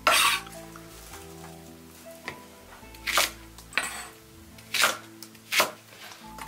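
A cleaver chopping thick scallion stalks into short lengths on a wooden chopping block: a loud sharp noise right at the start, then four separate chops in the second half, over background music with sustained notes.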